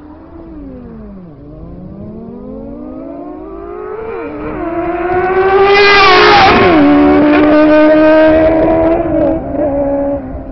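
Sport motorcycle accelerating hard at full throttle, its engine note climbing and dropping with each upshift. It is loudest as it passes close, about six to seven seconds in, where the pitch falls, then it fades away down the road.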